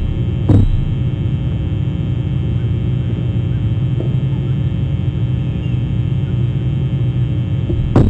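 Steady low hum with a single sharp knock about half a second in and a couple of faint taps later: a pileated woodpecker pecking into the tree's wood.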